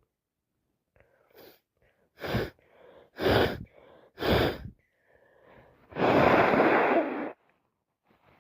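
A person sneezing three times in quick succession, about a second apart, with quieter breaths between, then a longer noisy breath lasting over a second: an allergic sneezing fit.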